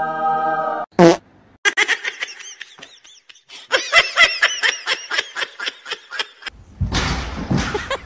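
Comic fart sound effect: a buzzy held tone for about a second, ending in a short squeal that falls in pitch. A long run of rapid laughter follows for about five seconds, and a burst of noise comes near the end.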